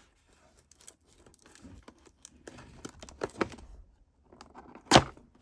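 Cardboard box and paper insert being handled and worked open: scattered light taps, scrapes and rustles, with one sharp snap about five seconds in as the box comes open.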